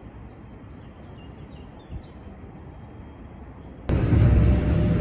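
Quiet outdoor background with a low rumble, then about four seconds in a sudden switch to the much louder, deep rumble of riding inside a moving vehicle.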